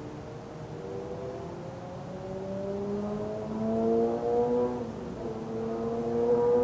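A vehicle's engine pulling away and accelerating, its pitch rising slowly and growing louder, with a break in the rise about five seconds in, like a gear change.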